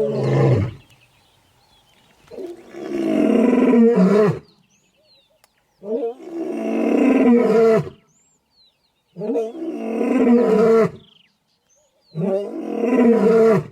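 Lion roaring: a loud, deep roar repeated about every three seconds, four times after the tail of an earlier one, each lasting about two seconds. Faint short high chirps sound in the gaps.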